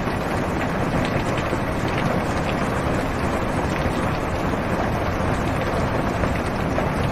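Heavy rain on a car's roof and windows, heard from inside the car: a steady hiss with faint scattered drop ticks.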